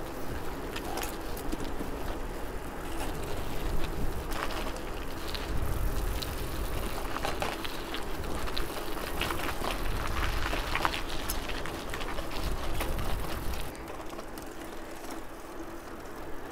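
Bicycles rolling along a paved road: tyre noise with wind rumble on the microphone and scattered light clicks and rattles from the bikes. It drops quieter for the last few seconds.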